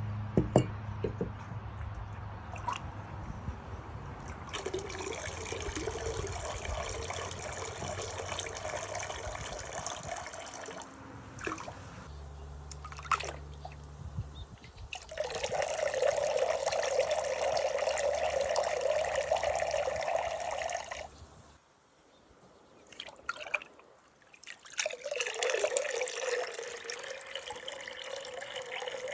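Tap water running over bisque-fired pottery being rinsed, coming in three long runs with short pauses between them and a few small knocks of the pieces being handled.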